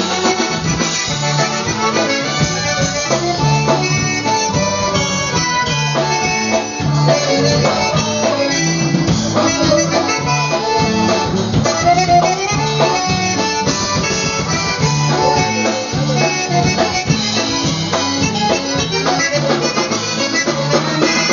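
Live polka band playing dance music, with trumpets over a steady bass and drum beat.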